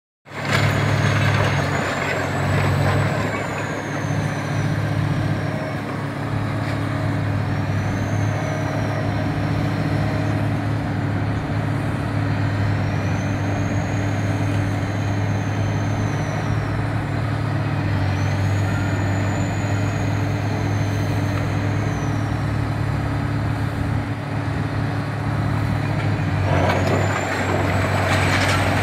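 High-reach demolition excavator working: its diesel engine runs steadily under load, and a high hydraulic whine rises and falls several times as the crusher moves. Concrete and masonry crunch and clatter as they break away, growing louder near the end.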